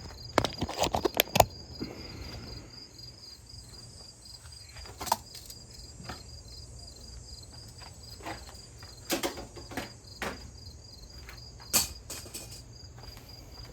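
A quick run of knocks and clunks in the first second and a half, then single knocks a few seconds apart, as a heavy through-wall heat pump is shifted and turned around by hand. Insects chirp steadily in a fast pulsing rhythm underneath.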